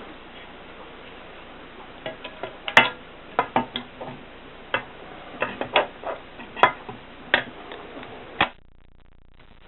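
Groma manual typewriter being typed on: sharp key strikes at an uneven pace, about two a second, starting about two seconds in and stopping near the end.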